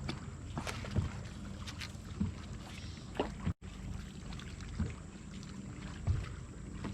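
Low steady rumble of wind and water around a fishing boat, with scattered small knocks and clicks of gear being handled. The sound cuts out completely for a moment about halfway through.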